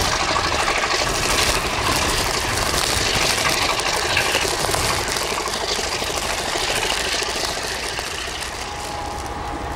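Locomotive passing close by, its engine rumbling low under a loud rushing hiss of snow thrown up as it ploughs through the drifts. A thin steady whine comes in near the end.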